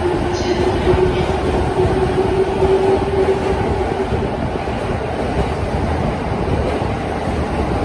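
E217-series electric commuter train running past the platform with a steady rumble of wheels and cars. A motor whine rises slightly in pitch for the first four seconds or so, then fades under the rumble.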